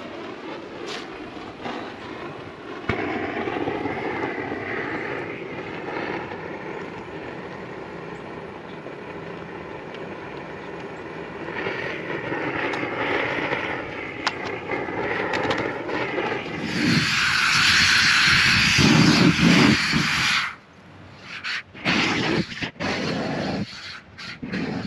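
Kubota U-35-4 mini excavator's diesel engine running and working, its pitch rising and falling with the load. A loud rushing noise builds about two-thirds of the way in and cuts off suddenly, followed by a few short loud bursts.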